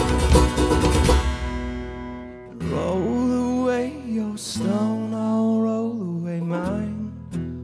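Live folk-rock band of strummed acoustic guitar, banjo, bass and drums playing loudly, then stopping suddenly about a second in. Held chords follow, with long sung notes over them.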